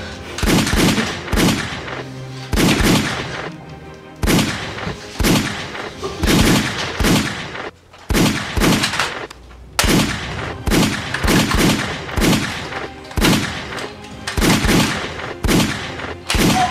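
Gunshot sound effects: a long string of single shots, each with a short ringing tail, fired at irregular intervals of about one to two a second.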